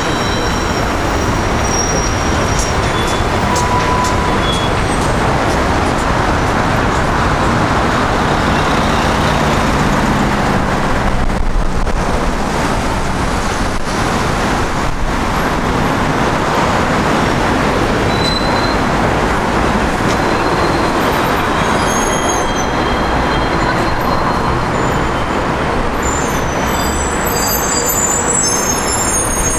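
City street traffic: a steady wash of road noise from passing vehicles, with a few short high squeaks near the end.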